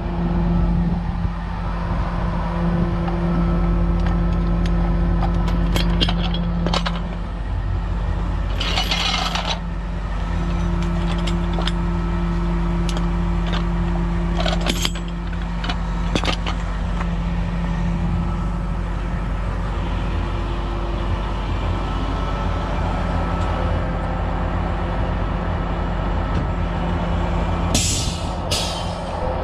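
Heavy diesel truck engine running steadily, with two short hisses of released air, one about nine seconds in and one near the end, and a few sharp metal clanks.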